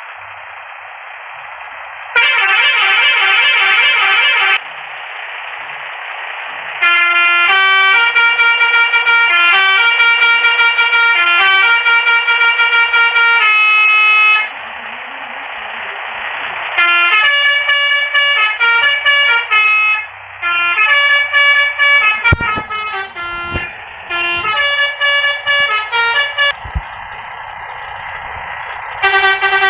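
Telolet horn, a multi-trumpet musical air horn, playing short tunes in four runs of quickly stepping notes. A steady hiss fills the gaps between the runs.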